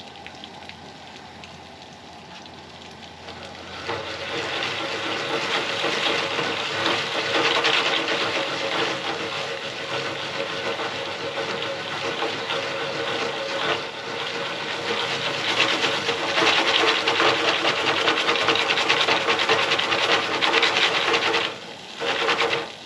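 Jiffy Pop aluminium pan being shaken back and forth across a Coleman propane camp-stove grate while the popcorn heats, a continuous rasping scrape. The scraping starts about four seconds in over the burner's steady hiss, stops shortly before the end, then comes back in one brief burst.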